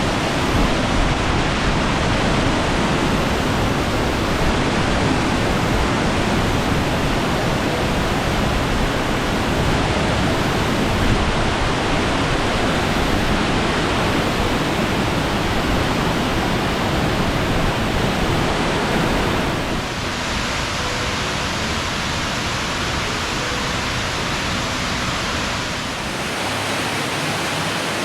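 Water of Fukuroda Falls, a four-tier waterfall, pouring down in a steady, loud rush of noise. The sound's character changes abruptly about two-thirds of the way through, and again shortly before the end.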